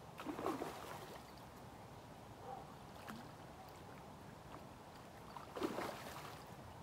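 A hooked king salmon splashing at the water's surface, twice: once just after the start and again about five and a half seconds in.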